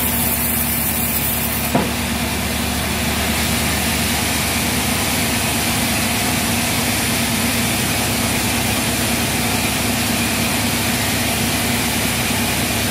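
Log band saw running steadily while a teak log is fed through the blade on the carriage, over a steady low motor hum. A short knock comes about two seconds in.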